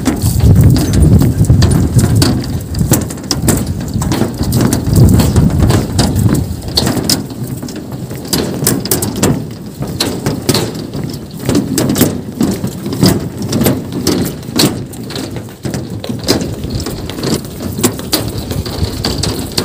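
Wind rumbling and buffeting on the microphone, with many small irregular clicks and knocks from walking across a steel-cable suspension footbridge. The rumble is strongest in the first few seconds.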